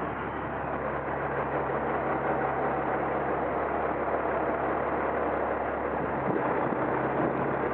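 Diesel semi-truck engine running steadily at low speed, a constant low drone mixed with road and wind noise.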